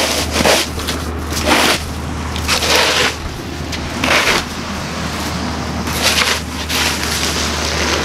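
Wide push snow shovel scraping across snow-covered pavement, about six or seven scraping strokes, each a short gritty rush of noise, as the sidewalk is cleared.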